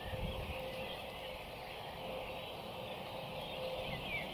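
Distant birds calling in the dawn chorus, a steady haze of faint song with a few short falling chirps near the end, over a low, uneven rumble.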